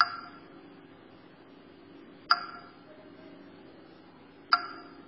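JAWS 17 screen reader installer beep sounds: a short ringing ping about every two seconds, three in all, signalling that the installation is in progress.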